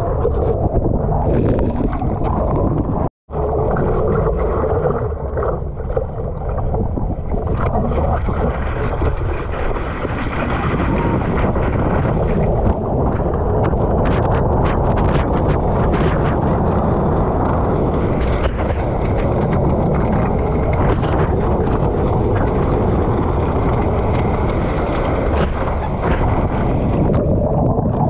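Loud rush of churning ocean water and wind buffeting a surfboard-mounted action camera's microphone, with scattered splashes of spray against it through the middle of the ride. The sound cuts out for a moment about three seconds in.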